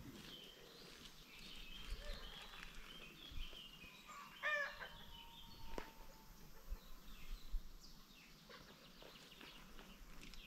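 Free-range chickens calling faintly, with high chirps in the first few seconds and one louder short call, repeated quickly a few times, about four and a half seconds in.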